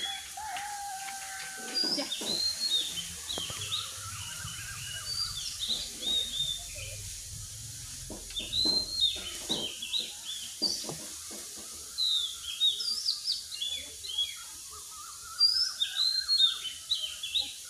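Birds chirping in quick runs of short high calls, again and again, with a few slower rising-and-falling whistles and scattered light knocks.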